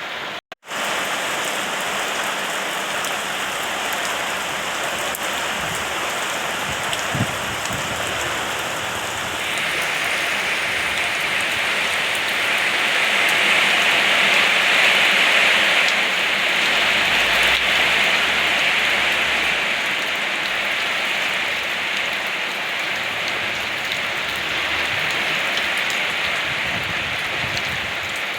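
Steady rain falling, swelling heavier about ten seconds in, with a brief dropout just after the start.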